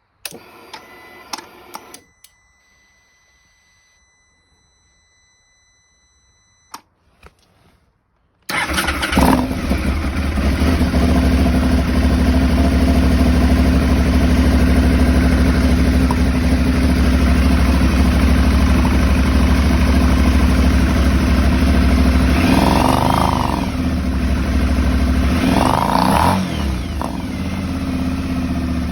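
Aprilia Shiver 750's 90-degree V-twin engine starting about a third of the way in and then idling, after a few clicks and a short whir as the ignition is switched on. The idle is rough, which the owner suspects is a throttle body problem. Twice near the end the engine note changes briefly.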